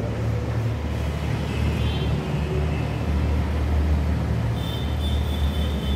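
A steady low rumble like a vehicle engine running, with chalk writing on a blackboard and a couple of brief, faint high chalk squeaks.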